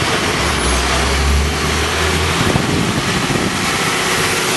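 Street traffic: a steady rush of road noise, with a low vehicle rumble from about half a second to two and a half seconds in.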